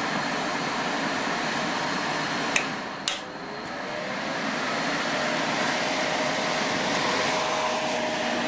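Pelonis disc furnace space heater's fan blowing steadily. Two sharp clicks come about two and a half and three seconds in. After them the blowing dips and builds back up over a couple of seconds.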